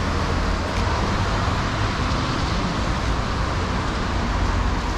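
Steady city street traffic noise: an even rumble and hiss with no single events standing out.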